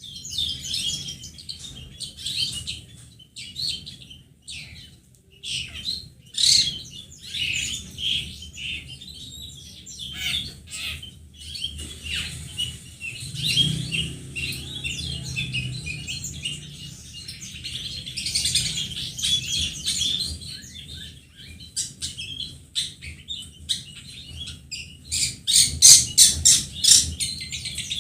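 Long-tailed shrike (pentet) singing a varied, chattering song of short notes, with a fast run of repeated notes near the end. It is a lure song (pancingan) played to prompt other shrikes to sing.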